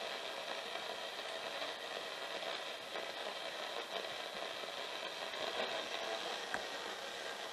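Portable radio giving out a steady hiss of static, used for a radio scan on a paranormal investigation.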